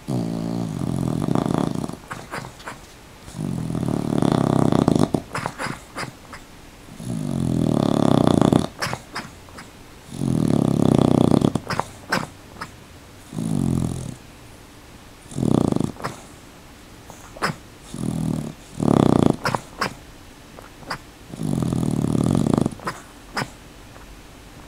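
Jack Russell terrier snoring in its sleep: about nine rasping snores, one every two to three seconds, the later ones shorter, with faint clicks between them.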